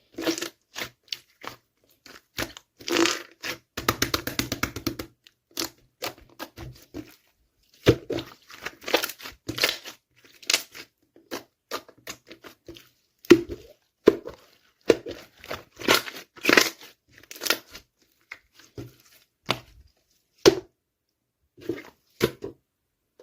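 Slime being squeezed and stretched by hand, giving irregular sticky popping and crackling clicks in clusters, with a dense run of rapid crackles about four seconds in.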